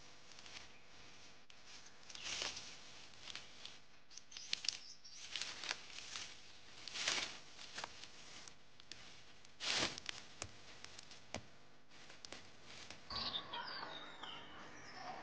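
Irregular rustling and crunching of dry bracken and brush underfoot and in the hands as a person moves through undergrowth picking wild shoots. A few high bird chirps near the end.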